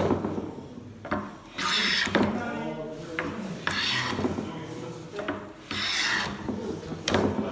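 A hand plane taking shavings off a wooden board: about four strokes, each a short hiss of the blade cutting, roughly one every two seconds, with a light knock as the plane meets the wood.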